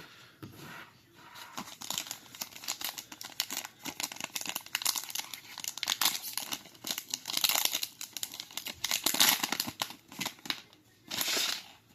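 Foil wrapper of a trading-card booster pack being torn open and crinkled, in a run of crackling bursts.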